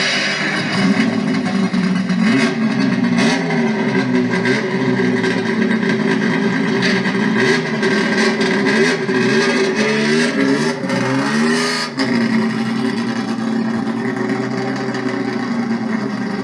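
Turismo Carretera race car engine running, blipped up and down several times from about nine to twelve seconds in, then dropping back abruptly to a steady idle.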